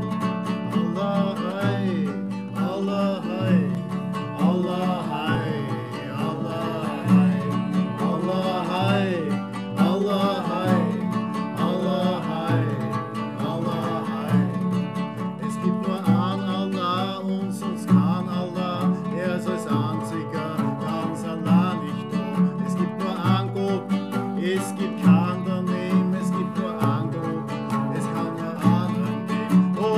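Music led by plucked string instruments, guitar-like, playing throughout with a wavering melody line above.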